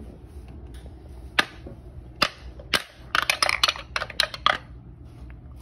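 Wooden pound-a-ball toy: three sharp wooden knocks as balls are hammered, then a rapid run of clacks as a ball drops and bounces down the tower's wooden ramps.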